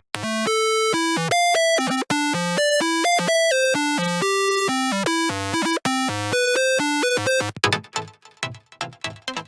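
Xfer Serum software synthesizer playing bass presets: a melodic line of clean notes stepping up and down in pitch, then, about three-quarters of the way through, a switch to another preset pulsing rapidly, about four times a second.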